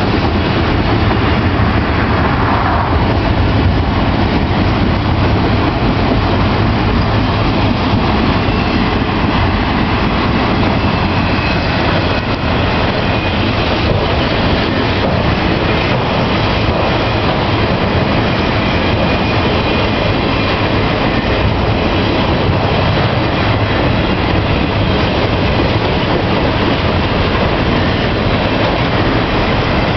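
Freight train of autorack cars rolling past: a steady, loud noise of steel wheels on the rails.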